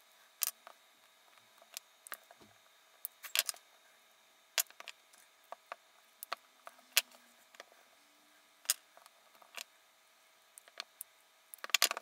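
Irregular light clicks and taps as a copper lug terminal is pushed and twisted by hand onto the trimmed end of a thick stranded 2-gauge cable, with a quick run of clicks near the end.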